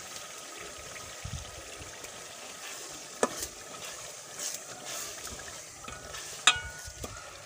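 Green peas sizzling in hot masala gravy in a metal pot while a metal ladle stirs them. The ladle clinks against the pot about three seconds in and again, louder and ringing briefly, near the end.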